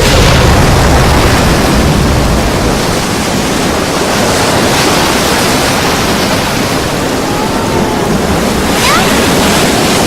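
Loud, steady rush of water, like breaking surf or a flood pouring through.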